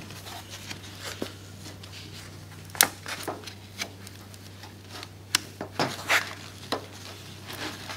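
A car carpet piece being handled and pressed into place during a test fit: scattered rustling with a few sharp clicks and knocks, the loudest a little under three seconds in. A steady low hum runs underneath.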